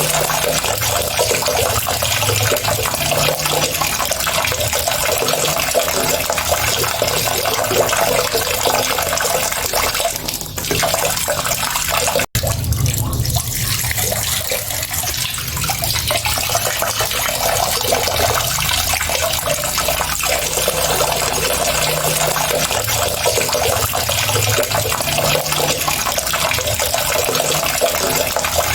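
Steady rush of running water, like a tap pouring into a sink, with a split-second drop-out about twelve seconds in.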